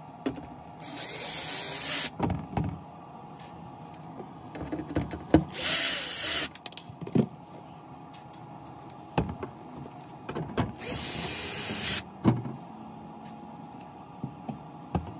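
Cordless power screwdriver running in three short bursts of about a second each, driving the screws of a wooden cabinet access panel, with clicks and knocks of handling in between.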